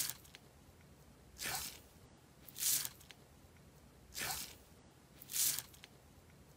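Hand pressing repeatedly into glossy slime topped with small white foam beads, a wet squelch with each push. Four squelches come about one every second and a half, each ending in a short falling squish.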